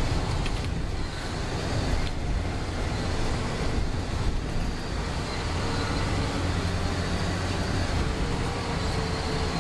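Steady road noise of a moving vehicle heard from inside it: a low rumble of engine and tyres with a hiss over it.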